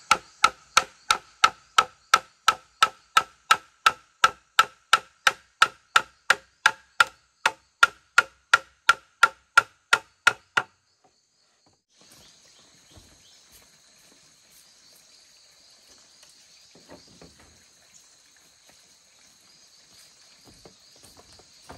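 Rhythmic chopping or hammering on bamboo, about two and a half strikes a second, each strike ringing briefly. The strikes stop about ten seconds in, leaving a steady high insect drone and faint rustling.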